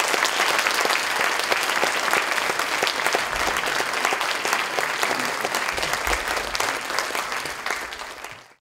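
Audience applauding, a dense steady clapping that eases slightly and then cuts off abruptly near the end.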